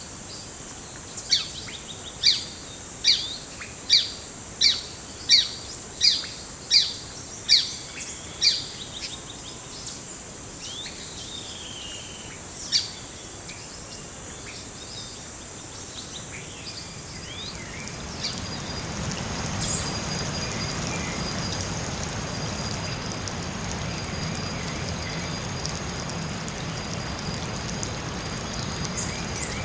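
A forest bird gives a series of about ten loud, high calls, roughly one every three-quarters of a second, over a steady high-pitched insect drone. Another single call follows a few seconds later. Past the halfway point a steady rushing noise swells in underneath and holds.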